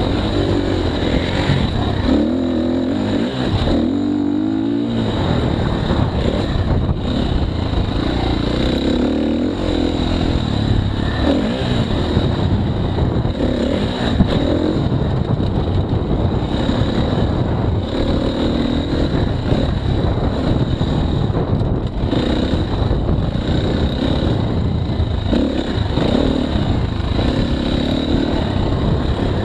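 KTM 350 XC-F dirt bike's single-cylinder four-stroke engine running under way on a trail, its pitch rising and falling repeatedly as the throttle is worked.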